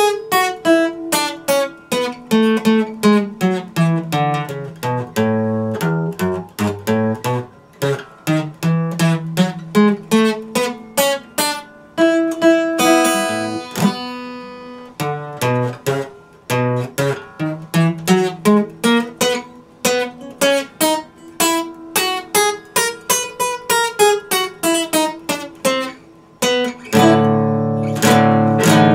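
Epiphone acoustic guitar played solo, fingerpicked: single ringing notes over bass lines that step downward. About two seconds from the end it changes to louder, fast strummed chords.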